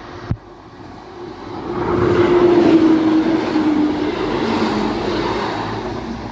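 A train passing the level crossing: its rumble swells and slowly fades, with a tone that drops in pitch as it goes by. A sharp click sounds just before it.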